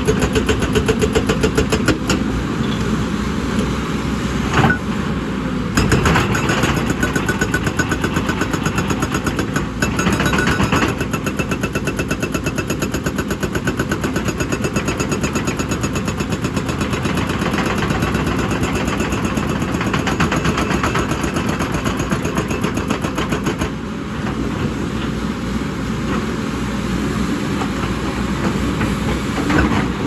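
Hydraulic rock breaker on a JCB tracked excavator hammering rock with a rapid, even series of blows, over the excavator's running diesel engine.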